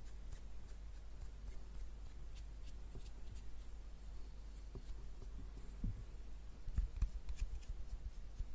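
Fingers and a tissue handling and wiping a small metal vape tank section, giving scattered light clicks and rubbing. A few louder, soft knocks come about seven seconds in.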